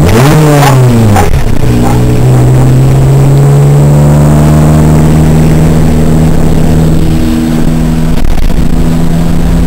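Engine of an off-road 4x4, heard from inside the cab while driving: it revs up and drops back in the first second, then pulls at a steady, nearly constant pitch.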